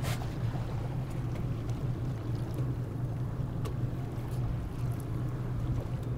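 A small boat's engine running at a steady low idle, a constant low hum under a haze of wind and water noise, with a short click right at the start.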